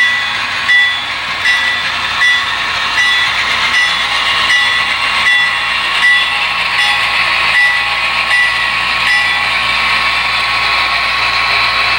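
Sound-equipped HO-scale diesel model locomotive running, with a steady engine drone and its bell ringing about every three-quarters of a second. The bell stops about nine seconds in.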